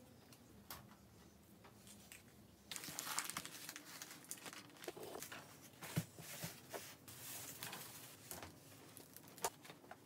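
A few faint clicks, then from about three seconds in a rustling and crinkling as a disposable pet sheet and a box are laid out on the floor of a wire-panel cage, with a couple of sharp knocks.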